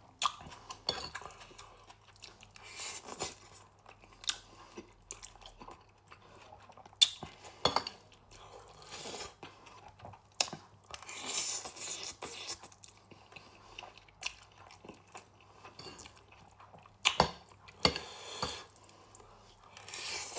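Someone eating spaghetti: a fork clinks and scrapes against the plate several times, with chewing in between.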